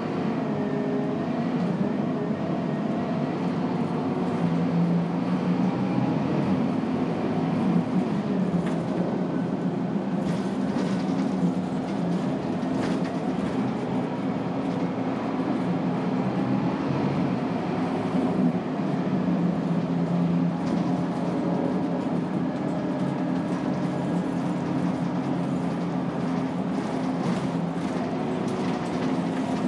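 Scania K280UB bus heard from inside the cabin: its rear-mounted 9-litre five-cylinder turbo diesel running under way, the drone rising and falling in pitch as the bus speeds up and slows through the ZF EcoLife automatic gearbox. Occasional knocks and rattles from the body.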